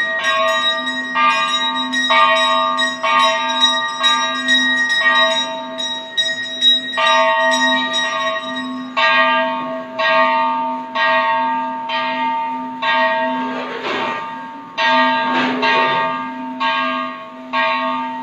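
Hindu temple bells ringing, struck about once a second, each strike ringing on into the next, over a low steady hum.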